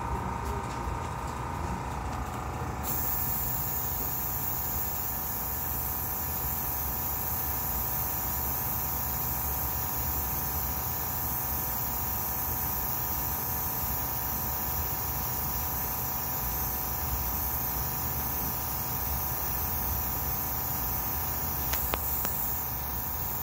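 Gravity-feed airbrush spraying paint, a steady hiss of air that starts about three seconds in, over a steady low hum.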